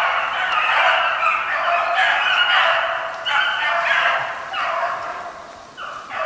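Several hunting hounds baying together in full cry on a hare's track, their voices overlapping. The chorus fades about five seconds in and picks up again just before the end.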